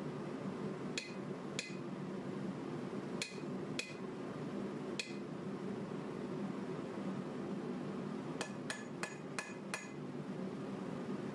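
Hand hammer striking a red-hot 1095 steel knife blank on an anvil, each blow a sharp metallic ring. The blows come singly and in pairs through the first half, then five fall in quick succession near the end, over a steady low hum.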